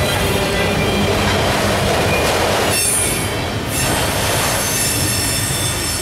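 Autorack freight cars of a Norfolk Southern train rolling past: a steady rumble of steel wheels on rail, with thin high squealing tones from the wheels. It eases slightly about three seconds in.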